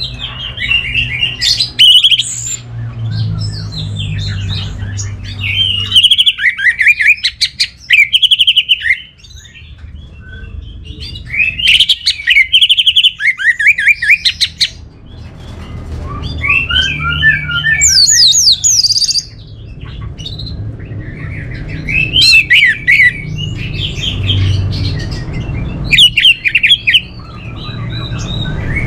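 Orange-headed thrush (Geokichla citrina, anis merah) singing: a series of loud song phrases of quick, varied whistled notes, each lasting one to a few seconds, with short pauses between them.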